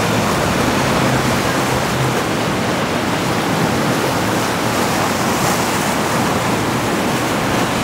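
Ocean waves and surf rushing steadily, with wind on the microphone.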